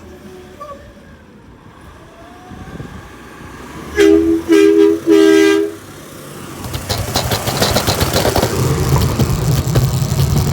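Garbage truck horn blown three times about four seconds in: two short blasts and a longer one, each a two-note chord. After that, engine noise builds steadily louder.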